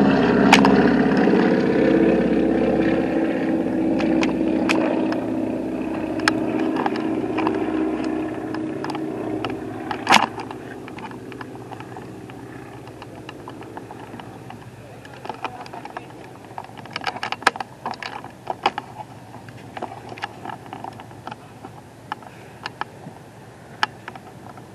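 Twin-engine propeller plane flying overhead, its engine drone loud at first, dropping slightly in pitch and fading away over about ten seconds. Scattered faint clicks and taps follow.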